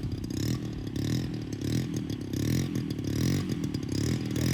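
ZDZ 90cc two-stroke petrol engine of a large-scale RC model plane idling, its pitch wavering up and down.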